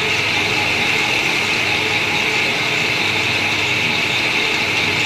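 Metal-working lathe running steadily, a constant even machine noise with a strong high hiss.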